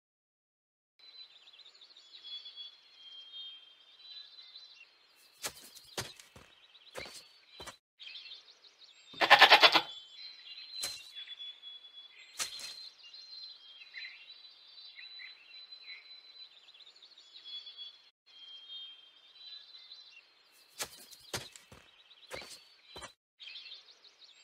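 Recorded goat sound effect played by the phone's 3D AR goat: one loud bleat about nine and a half seconds in, over a steady bed of high bird chirps. A few sharp clicks come a few seconds before the bleat and again near the end.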